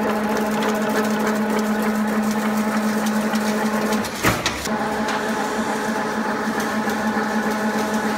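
Chain link fence weaving machine running: a steady machine hum with several constant tones, broken once about four seconds in by a short gap and a sharp knock.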